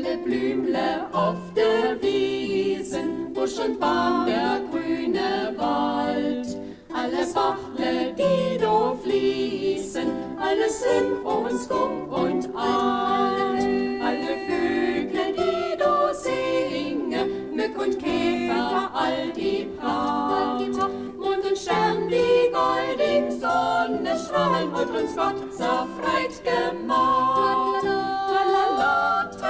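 Folk music: a choir singing, with a plucked string instrument.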